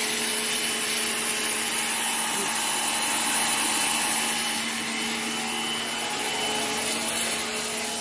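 Pressure washer running: high-pressure water jets hissing steadily against the backhoe loader's radiator core, blasting out the fiber dust that clogs its fins, over the constant hum of the washer's motor.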